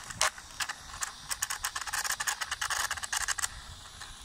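Homemade RC car's drive mechanism clicking and rattling as the car creeps slowly, a few sharp ticks at first and then a dense run of rapid clicks from about a second in to about three and a half seconds.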